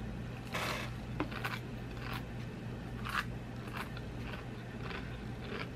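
Crunching and chewing of a Pringles potato crisp in the mouth: a string of short, irregular crunches.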